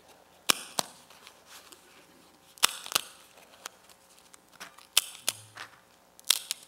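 A series of sharp, crisp clicks and snaps from handling at the altar, mostly in pairs about a third of a second apart, with a last single click near the end.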